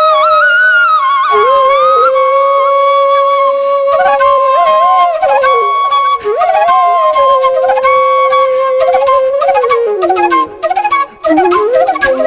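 Background music: a flute playing a slow melody of long held notes with sliding ornaments, over a steady sustained higher note.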